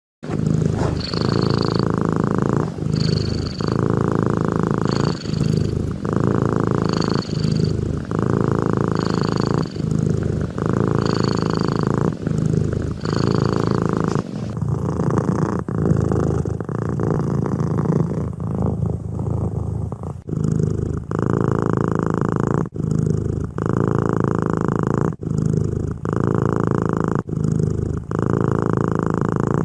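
A cat making a low rhythmic rumble with each breath, about one breath cycle every two seconds, broken only by brief pauses. For roughly the first half, a thin high whistle sounds on each breath.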